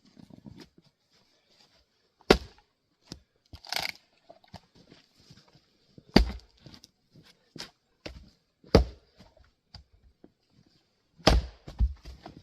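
Axe blows splitting grand fir rounds: four sharp, loud strikes a few seconds apart, with lighter knocks of wood between them.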